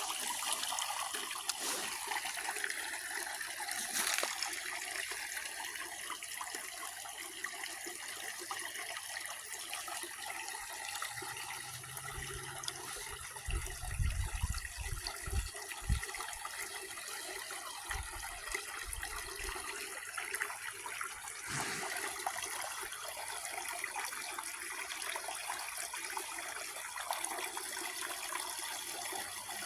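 Creek water running over a small waterfall: a steady rushing splash, with a few dull low thumps about halfway through.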